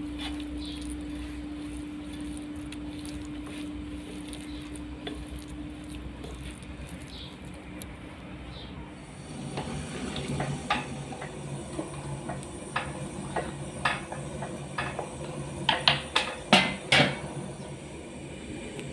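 Kitchen clatter of dishes and utensils: a steady low hum at first, then from about halfway a run of short clinks and knocks of metal and crockery, the loudest few near the end.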